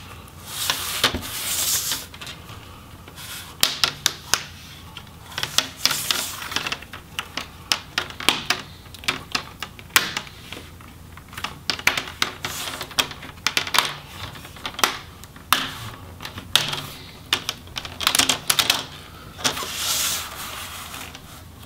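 Plastic retainer clips of a laptop LCD bezel popping loose one after another as the bezel is worked off the display by hand: irregular sharp clicks and snaps, with short stretches of plastic rubbing between them.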